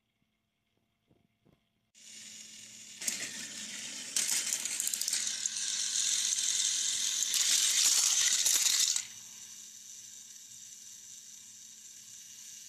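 Battery-powered toy train engine running: a small electric motor whirring, with its plastic gears and wheels rattling. It starts suddenly about two seconds in, is loudest with clicking for several seconds in the middle, then runs on more quietly.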